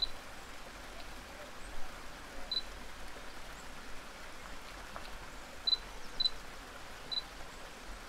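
Digital camera beeping: about five short, high beeps at irregular intervals, with a couple of faint clicks, over the steady soft rush of a creek.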